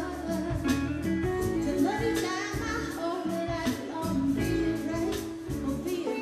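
Live band music: a woman singing lead into a microphone over a drum kit keeping a steady beat and an electric bass.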